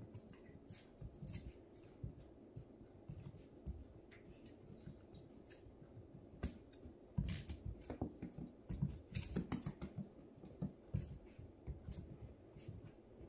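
A small puppy playing on an elevated mesh dog cot: irregular scratchy clicks and light taps of claws and teeth on the taut fabric and the plastic frame, in clusters that get busier in the second half.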